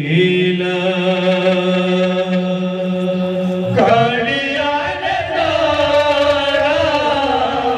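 Kirtan devotional singing: one long held note for nearly four seconds, then a new phrase with a wavering pitch that slowly falls.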